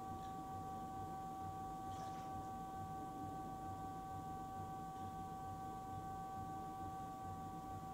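Electric pottery wheel spinning: a steady whine of several fixed tones over a low hum. A faint wet swish of hands on the clay sounds about two seconds in.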